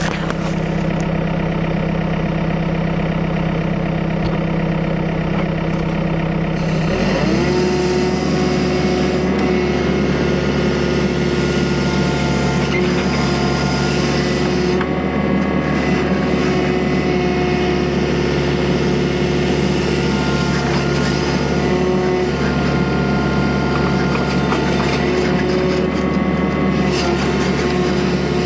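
Excavator's diesel engine idling, then revving up about seven seconds in and running steadily at high working revs.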